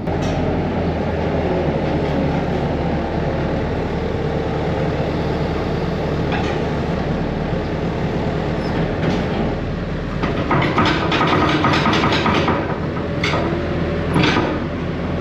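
A steady engine running throughout, with a burst of metal rattling and clanking between about ten and fourteen seconds in.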